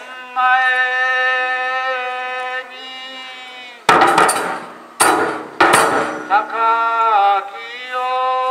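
Kagura ensemble music: a transverse bamboo flute holds long steady notes, broken around the middle by three loud, sharp percussion strikes with ringing after them, then the held flute notes return.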